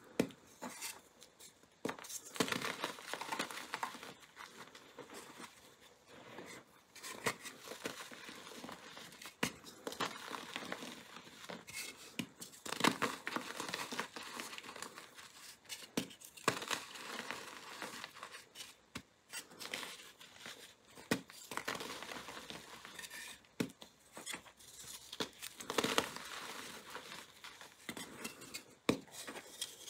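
Blocks of glitter-coated gym chalk crunching and crumbling in bare hands, with chunks and powder crackling as they are squeezed apart. The crunching is irregular, with frequent louder sharp cracks among the softer crackle.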